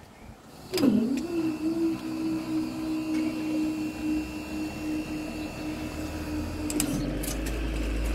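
Level crossing barrier mechanism starting up with a sudden whine that settles into a steady hum as the barrier booms rise. A low rumble builds near the end.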